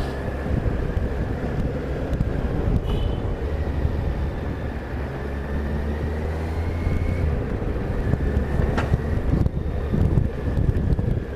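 Vehicle engines running on the road, with wind buffeting the microphone; a low engine drone holds steady through the middle, and a sharp tick comes near the end.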